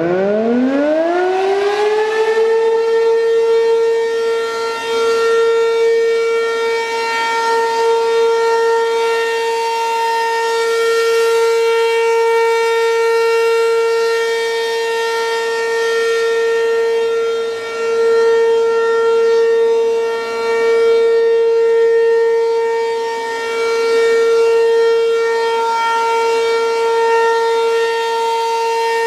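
American Signal RM-127 outdoor warning siren winding up, its pitch rising over the first two seconds, then holding one loud steady tone: the Alert signal of a siren test. Its loudness swells and dips gently as the rotating horn sweeps around.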